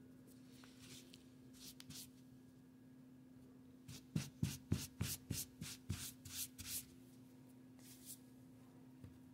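Quick rubbing strokes on a 1941 Argus AA camera as it is cleaned, a run of about ten at three or four a second in the middle, with a few softer strokes before and after.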